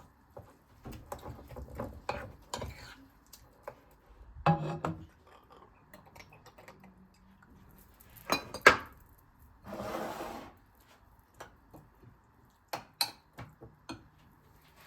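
Kitchen dishes and utensils being handled: scattered clinks and knocks, the loudest a little past eight seconds in, with a short rushing noise of about a second around ten seconds in.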